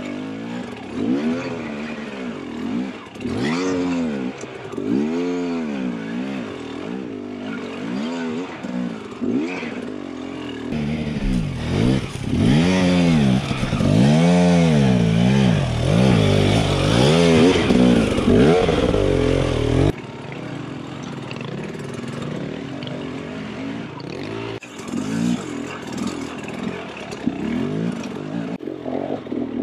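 Husqvarna TE300 two-stroke enduro bike engine revving up and down in quick blips, over and over, as it is ridden over rocky single track. It is loudest and most continuous from about eleven to twenty seconds in.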